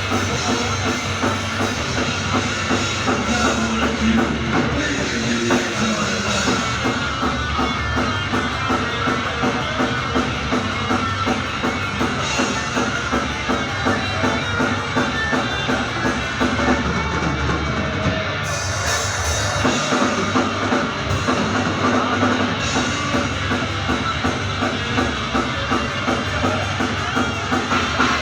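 Heavy metal band playing live: distorted electric guitars, bass and a steady drum-kit beat, with no vocals.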